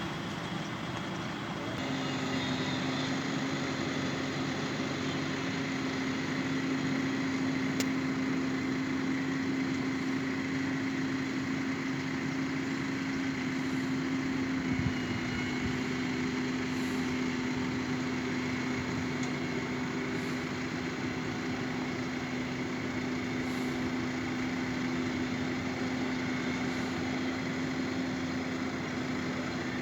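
Tractor engine running steadily, with a constant droning tone over the machinery noise.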